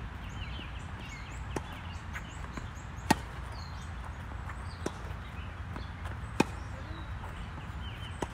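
Tennis ball struck by racquets during a doubles rally: sharp pops about every second and a half, the loudest about three seconds in and again a little past six seconds.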